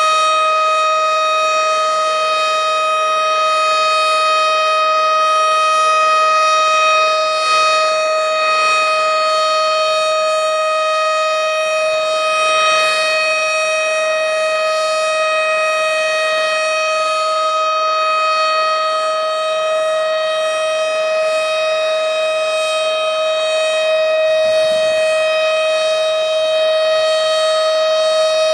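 Tornado warning siren sounding one steady, loud tone that holds the same pitch, with a strong ring of overtones above it.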